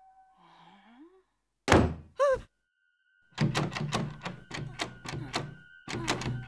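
A heavy thunk, then a brief vocal exclamation. About three seconds in, the metal doorknob of a wooden door starts rattling with rapid, irregular clicks as it is turned and worked, over a faint steady tone.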